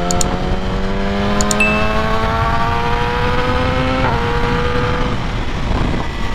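2019 Yamaha R6's 599cc inline-four accelerating, its pitch climbing steadily through the revs, then dropping with a gear change about four seconds in. Heavy wind rumble on the helmet-camera microphone runs underneath.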